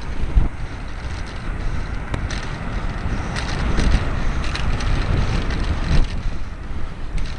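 Wind buffeting the microphone of a cyclist's helmet camera while riding, a steady low rumble with a few sharp knocks, the loudest about half a second in and at about six seconds.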